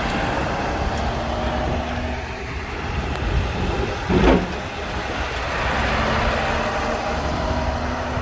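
Heavy snow-clearing trucks' diesel engines rumbling steadily past, with a brief louder burst of noise about four seconds in.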